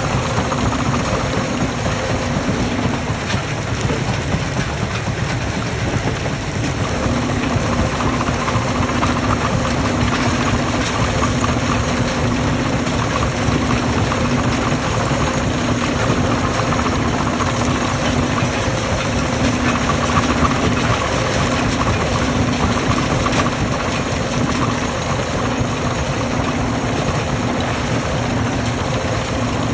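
Heavy stone-crushing machinery running steadily: a loud engine-and-machine drone with a dense rattle, and a low hum that drops out for a few seconds near the start before returning.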